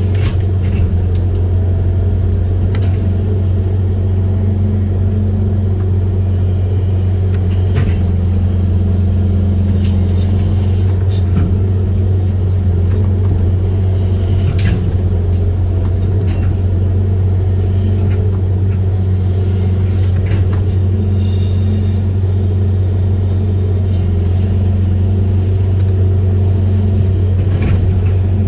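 Amphibious excavator's diesel engine running steadily with a deep, even drone, with a few short knocks scattered through it.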